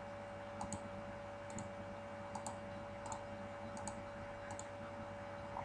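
Computer mouse clicking faintly, roughly once a second, as buttons are right-clicked and menu items chosen. A faint steady electrical hum lies underneath.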